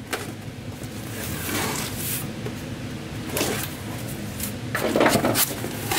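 Cardboard shipping box being handled and opened: a few short rustling, scraping bursts of cardboard and packaging, the loudest near the end, over a steady low hum.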